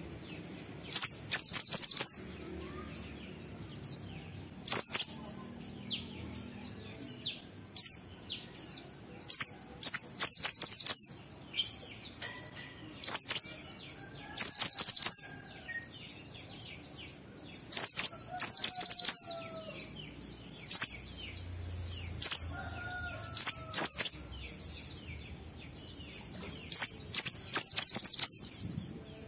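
White-eye (pleci) singing in the 'ngalas' style: repeated short bursts of rapid, very high chirps, each burst a run of several quick notes, with pauses of a second or two between bursts.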